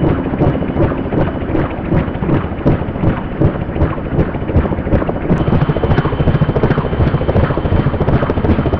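Fuji-Bell 204B-2 helicopter in a low hover and lift-off. Its two-blade main rotor beats rhythmically over the rush of its turboshaft engine. Just past halfway the beat grows denser and a thin steady whine comes in.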